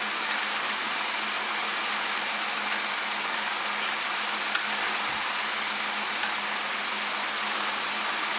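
Steady background hiss with a low hum, like a fan or air conditioner running in a small room. A few faint, short clicks sound every second or two.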